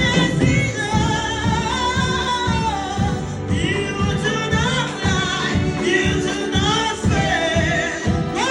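Live gospel music: voices singing a flowing melody over a band with a steady beat of about two strokes a second.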